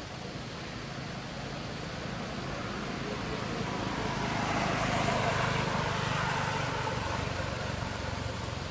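A vehicle passing on the road: a steady rush that swells over a few seconds, is loudest around the middle, then fades away.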